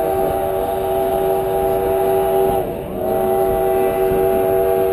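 Steam locomotive's chime whistle sounding long, steady blasts as a chord of several tones, with a short break about two and a half seconds in. Under it is the low rumble of the narrow-gauge train rolling.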